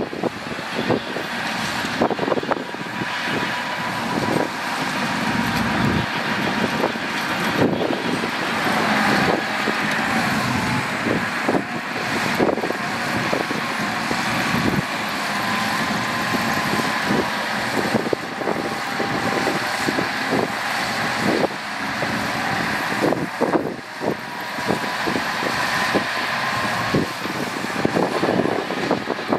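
Dump truck's diesel engine running as it tips and unloads soil, with many short knocks and clanks scattered throughout.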